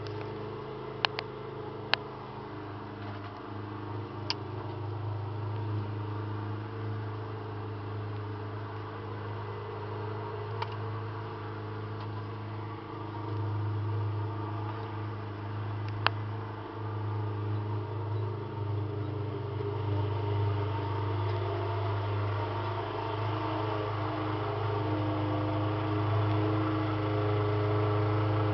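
A steady low mechanical hum, like a fan or motor, with about six sharp pops, several in the first few seconds and one more about sixteen seconds in.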